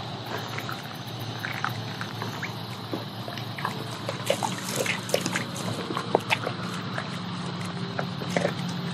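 Shallow stream trickling over stones, with scattered splashes and clicks of a person and a dog stepping across the wet rocks.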